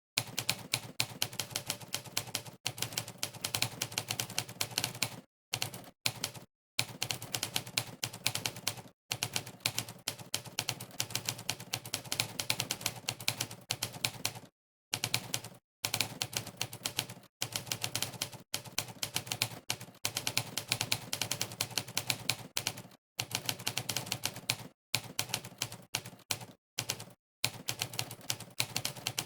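Typewriter keystroke sound effect from a typing-test program, one click played for each key typed, in rapid runs of many clicks a second. The runs break off several times into short, dead-silent pauses.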